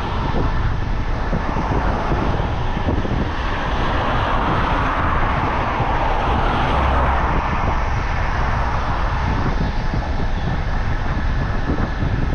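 Road traffic heard from a moving bicycle: a constant low wind rumble on the microphone, with a passing vehicle's noise swelling in the middle and fading again.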